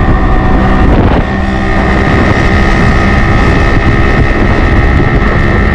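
Motorcycle riding along at speed: a steady engine hum under heavy wind noise on the microphone. It starts abruptly.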